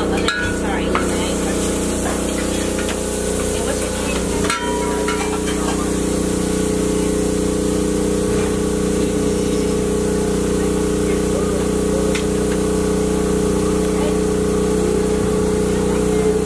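A machine running with a steady hum that holds one pitch throughout, with faint voices under it and a single knock about four and a half seconds in.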